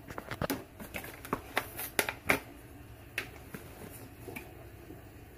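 Light clicks and taps from handling things at a kitchen stove: a quick run of them in the first two and a half seconds, then a few scattered ones.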